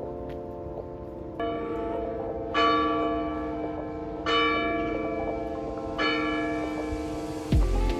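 Background music: sustained chords with bell-like chimes struck about every second and a half, and a low falling boom near the end.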